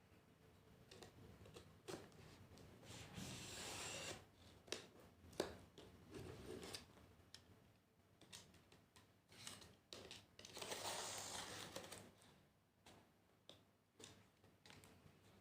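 A cardboard shipping box being opened by hand: faint scattered taps and clicks of handling, with two longer rasping stretches of cutting or tearing, about three seconds in and again past ten seconds.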